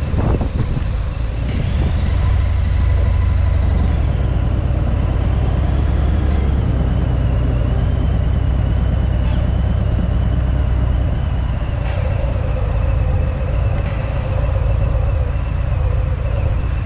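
Harley-Davidson Fat Bob's V-twin engine and exhaust running steadily under way. Its low note grows stronger shortly after the start and eases back later on.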